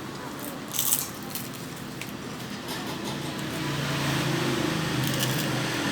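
Steady low motor hum that grows louder in the second half, with a brief crisp clatter about a second in.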